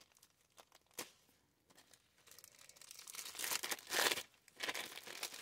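Thin clear plastic bag crinkling as hands pull it open around a rolled canvas, growing louder over the last couple of seconds. A single short click about a second in.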